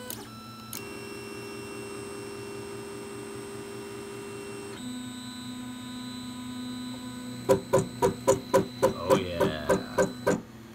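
Anet ET4+ 3D printer's stepper motors whining steadily as the axes move during homing, the pitch changing twice as different moves start. Near the end comes a run of about a dozen sharp knocks, about four a second, louder than the motor whine.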